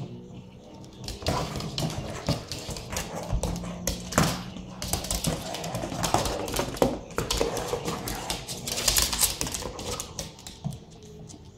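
A dog's claws clicking and scrabbling on a hard wooden floor as it plays with a ball, in quick irregular runs of clicks that are busiest in the middle and thin out near the end.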